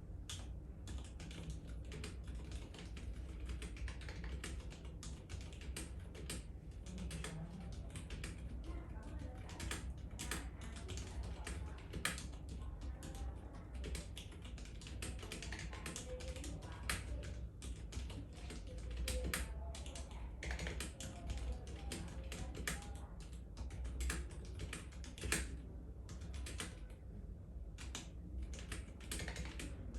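Typing on a Novelkeys NK65 Entry mechanical keyboard with lubed 65 g Zealio V2 tactile switches: a steady, irregular run of keystroke clacks at several per second.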